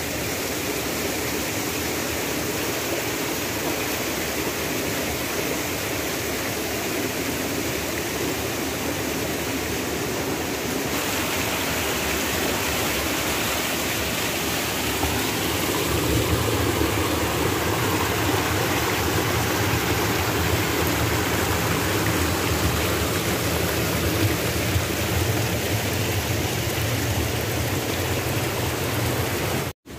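Muddy, rain-swollen jungle stream rushing over rocks, a steady noise of water that grows a little louder and deeper about halfway through. It cuts out briefly just before the end.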